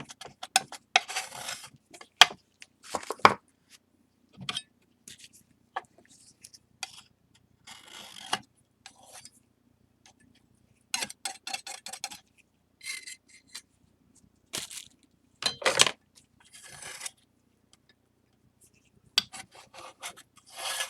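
Palette knife scraping and tapping on a tray as flour and water are worked into a paste, in short bouts of scrapes and clicks with pauses between.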